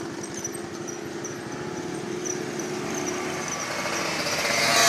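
Road traffic: a motor vehicle's engine running steadily, growing louder toward the end as it approaches.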